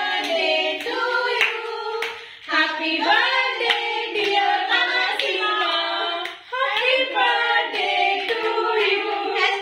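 Several voices singing together with hand clapping, about two claps a second.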